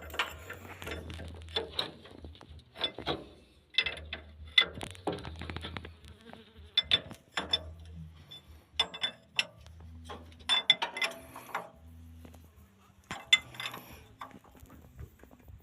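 Metal tools and parts clinking and knocking against each other in irregular strikes, some with a short ring, over a low buzz that starts and stops every second or two.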